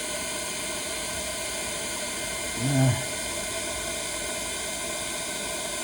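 Steady hiss with faint fixed whining tones, typical of a 1300-watt handheld induction heater and its cooling fan running. A man gives a short "hmm" a little under halfway through.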